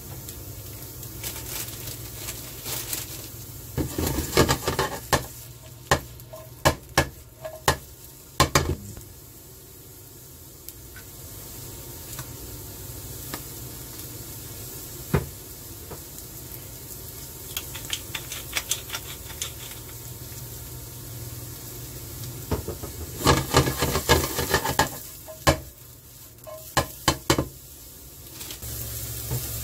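Shiitake and shimeji mushrooms sizzling with minced garlic in a nonstick frying pan, with two spells of a spatula scraping and tapping against the pan as they are stirred.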